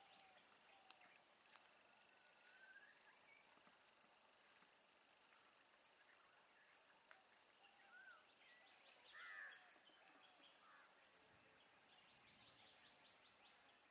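Faint, steady high-pitched insect chorus, growing slightly louder and pulsing in the second half, with a few faint bird chirps over it.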